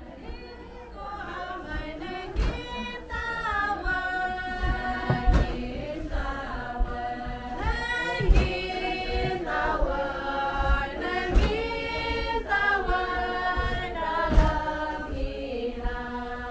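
A group of voices singing a slow chant in unison for the Kenyah datun julut dance, with long held and gliding notes. A knock about once a second keeps time.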